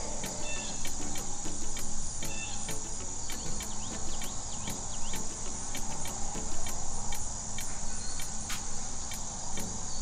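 Steady high-pitched insect chorus, like crickets, with rapid regular chirps.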